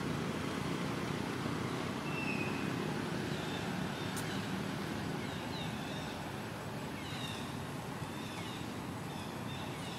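Steady low outdoor background rumble, with faint, short, high chirps now and then, mostly in the second half.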